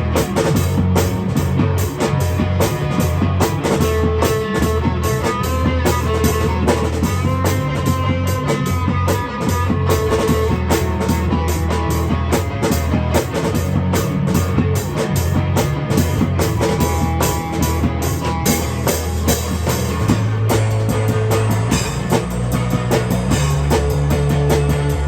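A rock band playing an instrumental passage: electric guitar over a drum kit keeping a steady beat, with a bass line that moves to a new note about 20 seconds in.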